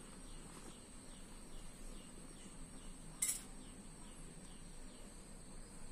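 A single sharp click just after three seconds in, over a faint background of a steady high whine and short chirps repeating between two and three times a second.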